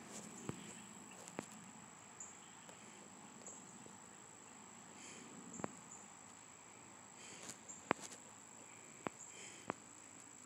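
Faint steady high-pitched whine with about eight light, sharp taps scattered through it, like fingers tapping a phone's touchscreen.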